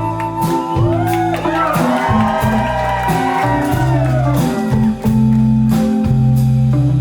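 Indie pop band playing live, with bass and electric guitar. A run of sliding, bending notes comes in from about one to three seconds in.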